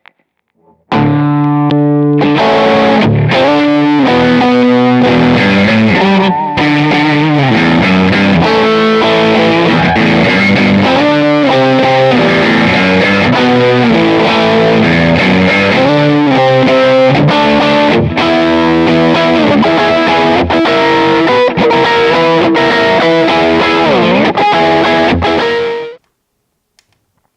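Seven-string multiscale electric guitar with three single-coil pickups wired in series, played through distortion: a continuous riff of changing chords and single notes that starts about a second in and cuts off abruptly near the end.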